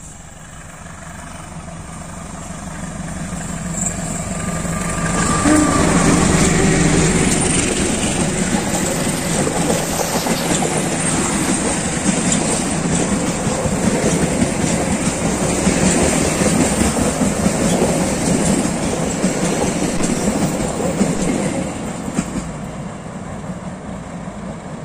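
Diesel-hauled passenger train approaching and passing close by. The sound builds over the first five or six seconds as the locomotive arrives, then stays loud and steady with the wheel and rail noise of the coaches rolling past, and eases off near the end as the train moves away.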